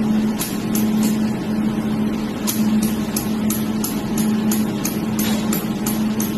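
Jewelry laser welding machine firing repeated laser pulses onto metal: sharp snapping clicks, a few in the first second, then about three a second from about two and a half seconds in. Under them runs the machine's steady hum, which breaks off briefly about once a second.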